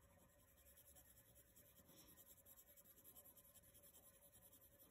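Faint scratching of a graphite pencil shading on paper in small circular strokes, a quick, even rhythm of soft strokes.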